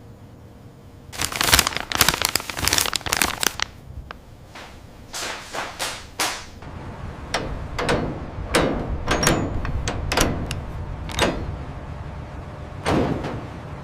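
A run of sharp knocks and clatters over a steady low rumble: a dense flurry about a second in, then single knocks scattered every half second or so.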